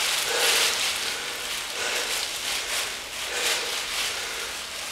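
A person panting hard after heavy exertion, rapid noisy breaths about one a second.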